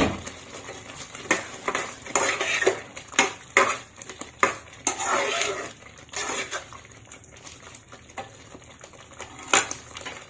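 A cooking spoon knocking and scraping against a metal kadhai while stirring paneer into thick masala gravy: irregular clinks and knocks with a few longer scrapes.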